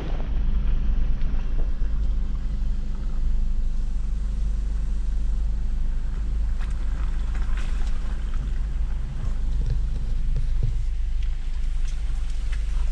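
Jeep Rubicon driving slowly along a dirt forest trail: a steady low engine and tyre rumble with wind buffeting the microphone. Several short clicks and knocks come through in the second half.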